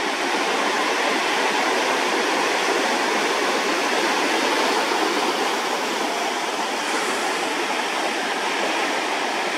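Ocean surf rushing and washing in a steady, even hiss, with no single wave crash standing out.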